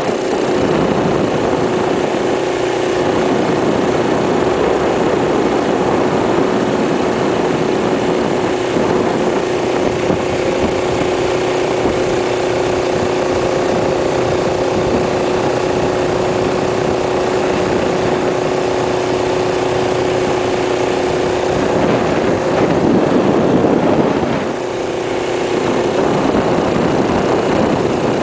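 A 1972 Rupp Roadster minibike's single-cylinder Tecumseh engine runs at a steady speed under way, with wind rushing over the microphone. About three-quarters through, the engine gets louder and rougher for a couple of seconds, then drops off briefly before steadying again.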